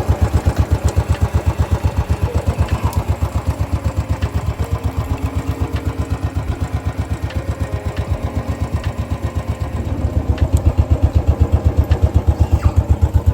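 Motorcycle engine idling with a steady, even low thump about six times a second, a little louder for the last few seconds.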